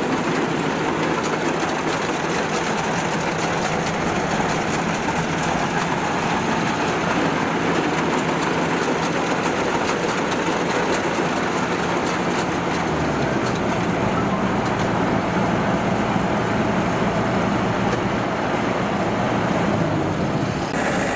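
A Kubota DC70 rice combine harvester running close by as it works through the crop, a steady mix of engine and machinery noise. About halfway through, the engine's low note shifts lower.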